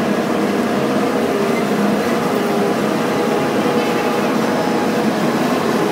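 Steady running noise of a parking tram under way: a low engine hum over road and wind noise.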